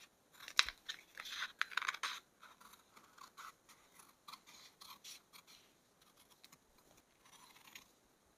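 Scissors cutting along a marked pattern line: a run of irregular snips, most frequent in the first two seconds, then sparser and fainter.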